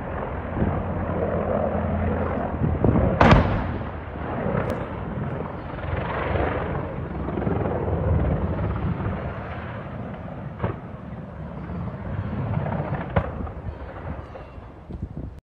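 Helicopter flying low overhead, its rotor and engine noise swelling and fading. One sharp, loud bang comes about three seconds in, with a few fainter cracks later.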